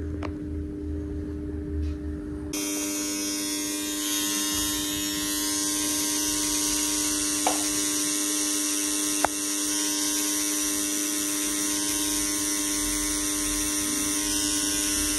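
Electric permanent-makeup pen buzzing steadily as it works an eyebrow. It starts about two and a half seconds in, after a low hum, and two faint ticks come through partway along.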